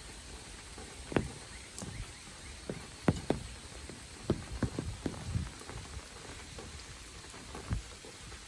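Rain: large drops striking close by in irregular, sharp taps and thuds over a steady hiss of falling rain, with a faint thin high insect tone.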